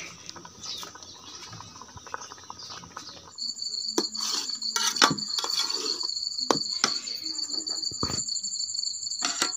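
A metal spatula scraping and knocking against an aluminium pot as mango jam is stirred, with several sharp knocks. From about three seconds in, a steady high insect trill runs underneath.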